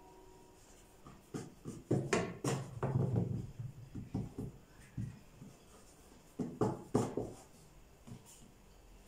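Hands pressing and folding soft dough rounds on a wooden board and setting them into a metal tray: irregular soft knocks and rubs, in a run about two to four seconds in and a shorter one about six and a half seconds in.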